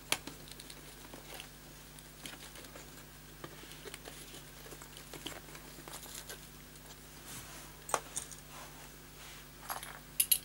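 Scattered small clicks and light rustling from hands handling cables and a small connector on the metal back of an LCD TV panel, with a sharper click about 8 seconds in and a quick cluster near the end. A faint steady low hum runs underneath.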